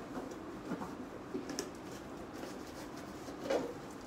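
Dishes being washed by hand in a sink: a sponge scrubbing a mug, with a few light knocks of crockery, the loudest a little before the end.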